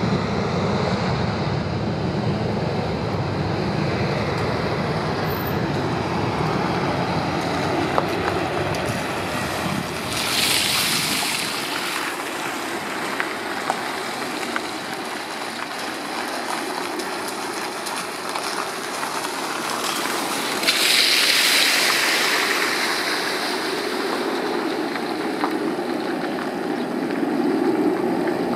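Low rumble of an Airbus A320's jet engines dying away over the first ten seconds or so as it climbs out, under a steady rushing noise. Two louder surges of hiss come about ten and twenty-one seconds in.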